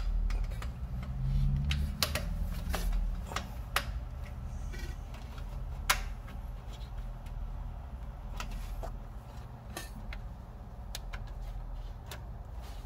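Irregular metal clicks and scrapes from a flat-head screwdriver prying at the inner clamp on a tie rod boot, the sharpest click about six seconds in, over a steady low hum.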